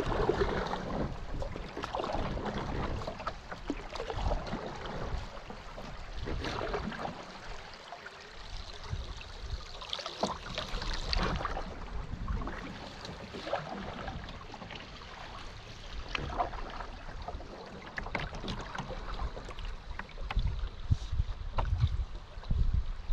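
Water rushing and splashing around a solo Esquif Echo canoe on a fast spring-melt river, swelling and easing irregularly.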